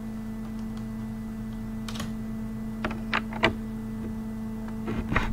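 Computer keyboard keystrokes, a few separate clicks about two and three seconds in and a quick cluster near the end, over a steady low hum.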